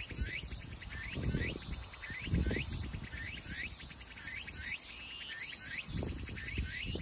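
Outdoor ambience with a small creature's short rising chirps repeating steadily, about two or three a second. A few low rumbles come through about a second in, about two and a half seconds in, and near the end.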